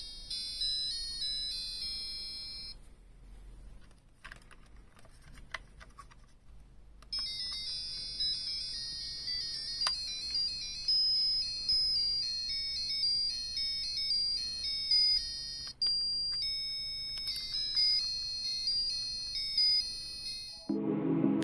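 JX-371D motion-sensor door chime playing high-pitched electronic beeping melodies. One tune cuts off about three seconds in, a few clicks follow, and another tune starts about seven seconds in and plays until near the end.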